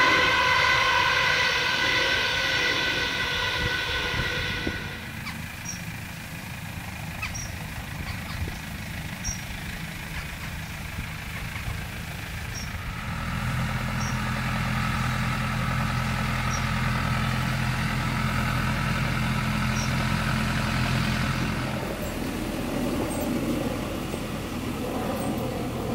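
Electric passenger train passing, with a steady high whine over a rumble that fades after about five seconds. About halfway through, a steady low vehicle hum comes in for several seconds and then dies away.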